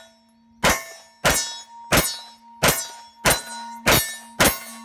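Seven shots in steady semi-automatic fire from a 9mm AR-9 pistol, about one and a half shots a second. A metallic ring hangs on between the shots.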